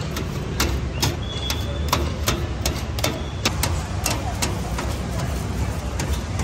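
Steel scraper blade chopping grilled paneer on a steel tray: sharp metal-on-metal clinks, about two or three a second at an uneven pace, over a steady low rumble.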